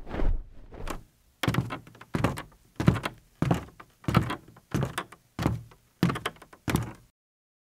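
A run of about nine dull thumps at an even pace, roughly three every two seconds, each dying away quickly.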